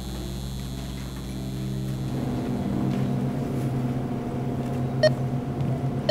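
Steady electrical hum of supermarket fluorescent lighting and refrigerated display cases, growing louder about two seconds in. A sharp click sounds about five seconds in and another at the end.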